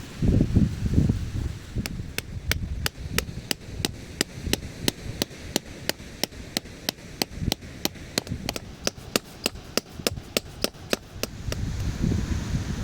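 A long run of sharp, evenly spaced strikes, about three a second, like hammering or chopping, starting about two seconds in and stopping shortly before the end. Wind buffets the microphone at the start and end.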